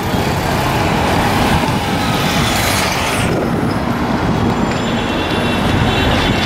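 Steady road-traffic noise on a busy city street, with a car driving past close by partway through.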